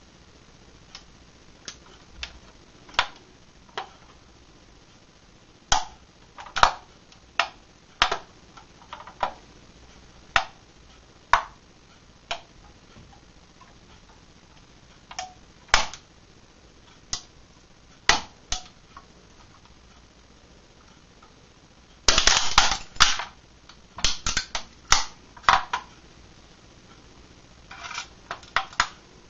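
Die-cast metal model of a Ford 12M being crushed under a bare foot: single sharp cracks and creaks as the body gives way, about one a second, then a dense run of crackling about 22 seconds in and again near the end.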